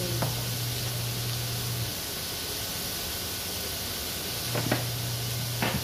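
Ground meat frying in a large aluminium wok, a steady sizzling hiss. A low hum drops out about two seconds in and comes back near the end, where a few light clicks are heard.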